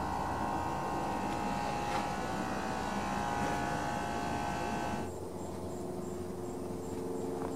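A steady, droning machine hum made of several tones, which cuts off abruptly about five seconds in. After it comes a quieter background with a high insect-like chirp repeating about three times a second.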